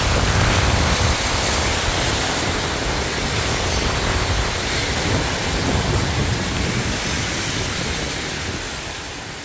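Strong storm wind blowing across the microphone: a steady rushing hiss over uneven low buffeting rumbles. It fades out near the end.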